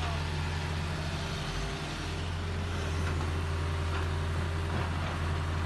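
Heavy hydraulic excavator's diesel engine running steadily with a low drone.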